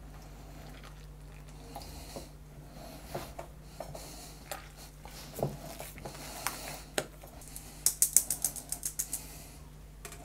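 Soft, scattered knocks and rubbing of hands kneading dough in a glass bowl, then, near the end, a quick run of about ten light taps, roughly seven a second, as a hand-held mesh sieve is tapped to shake flour out onto a glass board.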